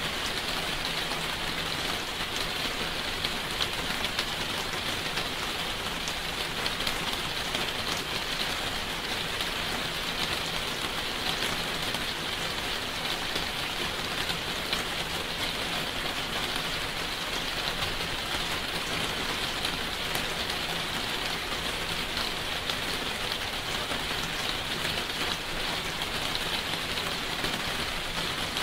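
Steady rain: an even hiss with faint, scattered drop ticks, unchanging throughout.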